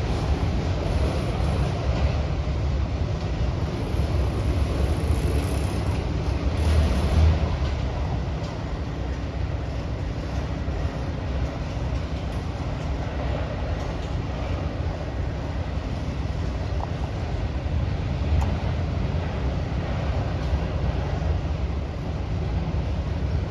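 Empty autorack cars of a freight train rolling past, a steady low rumble of wheels on rail.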